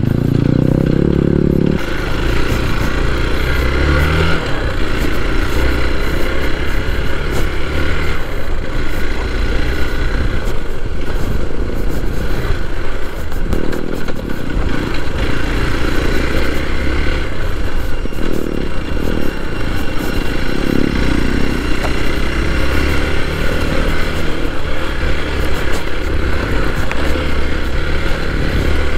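Hero XPulse 4V's single-cylinder engine running under way on an off-road ride, its note rising and falling with the throttle.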